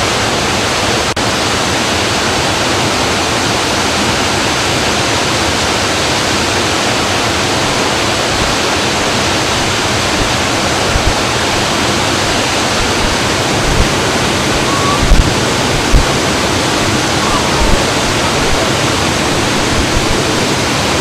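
Small waterfall running, a steady rushing of falling and splashing water, with a few brief low thumps partway through.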